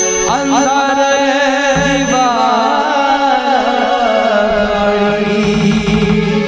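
A man singing a long, wordless, ornamented devotional melody that winds up and down, over steady held instrumental notes.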